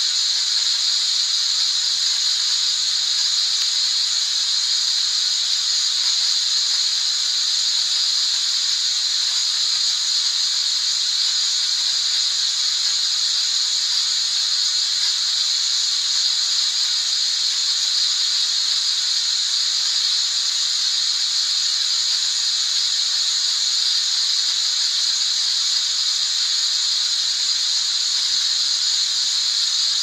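Steady, high-pitched white-noise hiss that never changes, played as a monotonous sleep sound to soothe a baby.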